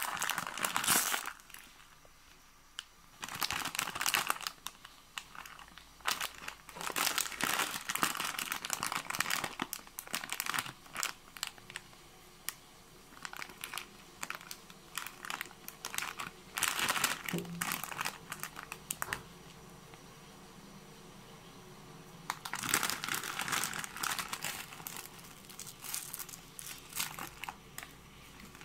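Foil-lined plastic instant-pasta pouch crinkling in irregular bursts as hands handle it, with quieter gaps between the bursts, and a clear plastic seasoning sachet handled near the end.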